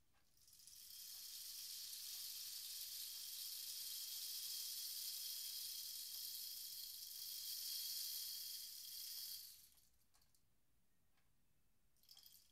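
Rainstick tipped over, its beads trickling down inside the tube in a steady rain-like hiss that swells up about half a second in and dies away near the tenth second. A few light rattles follow near the end as the stick is turned again.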